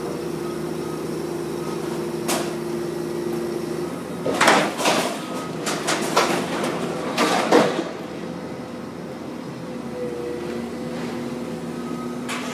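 Komatsu hydraulic excavator running with a steady engine hum, and from about four seconds in a run of loud crashes and clatter for a few seconds as it knocks into the building and debris. The engine note then settles lower.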